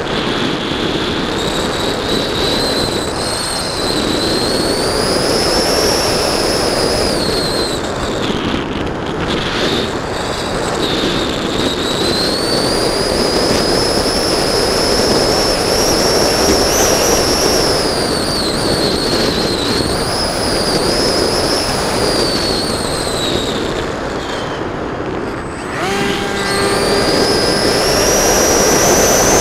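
Electric motor and propeller of an R-Planes Pioneer FPV plane heard from its onboard camera in flight: a high whine that rises and falls with the throttle over a steady rush of wind. Near the end the whine drops away briefly, then climbs again.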